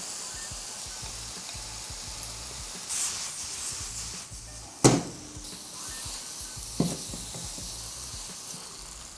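Rice noodles and vegetables sizzling in oil in a hot wok as they are tossed and stirred, a steady frying hiss. A sharp knock about five seconds in and a lighter one near seven seconds.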